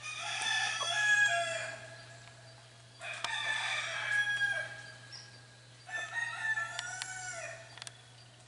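A rooster crowing three times, about three seconds apart, each crow lasting around two seconds.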